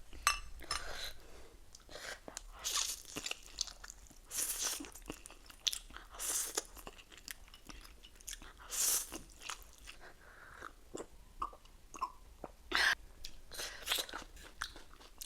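Close-miked eating sounds: a person chewing and crunching a mouthful of ramen, pork and lettuce, with irregular wet bites and mouth clicks.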